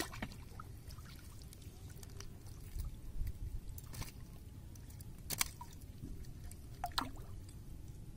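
Water dripping and splashing as a gill net is hauled by hand out of a pond over the side of a wooden boat, with a fish splashing as it comes up in the net. A few short sharp splashes stand out over a low steady rumble.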